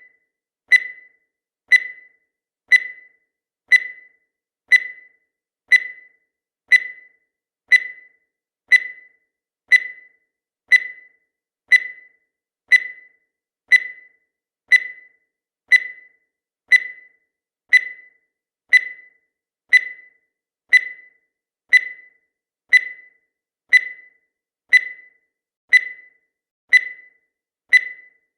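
Countdown timer sound effect: a short, high tick once every second, each sharp at the start and fading quickly, in a steady even rhythm.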